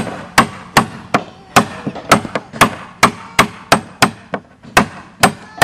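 Hammer blows on wood in a steady, even rhythm of about two to three strikes a second, from work on a hand-built wooden boat.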